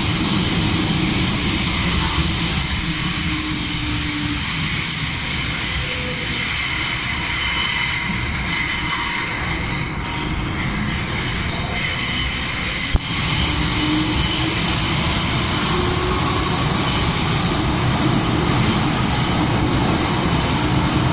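MTR M-Train subway car running through a tunnel, heard from inside the car: steady rumble and wheel noise with high ringing tones over it. One sharp click comes about 13 seconds in.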